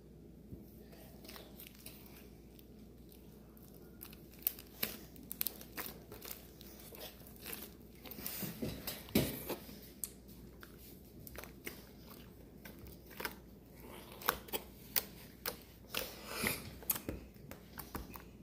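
Close-up crunching and chewing of food: irregular sharp crackles and clicks that start about four seconds in and come thicker in the second half.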